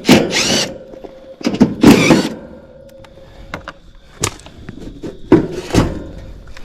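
Sheet-metal access panel of a Trane XR heat pump's outdoor unit being worked off. Two scraping, clattering bursts come in the first two seconds, then a sharp knock and another clunk a few seconds later.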